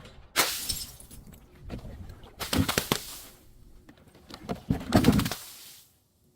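Brittle, crunchy objects being crushed: three separate bursts of crackling and crunching, about two seconds apart.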